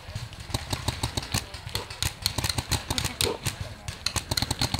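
Paintball markers firing: quick, uneven strings of sharp pops, several a second.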